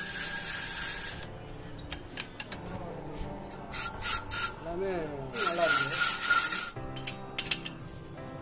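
Lathe cutting tool scraping a rusty steel pulley spinning in the chuck: a harsh scraping noise with a high, steady squeal. It comes in two bursts, one lasting about the first second and one from about five to nearly seven seconds in, with lighter scrapes between.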